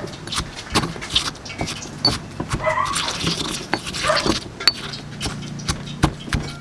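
A pestle pounding and grinding chopped onion, garlic, chili and sugar in a mortar to make a sauce paste: an uneven run of dull knocks, roughly two to three a second.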